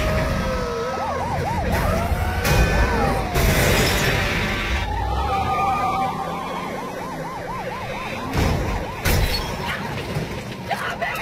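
Police car sirens wailing, then switching to a fast repeated yelp, over engine noise, with several sharp crashes and impacts.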